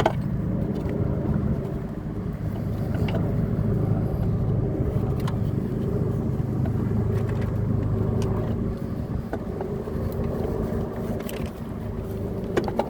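Steady low hum of an engine running, with a few light clicks on top.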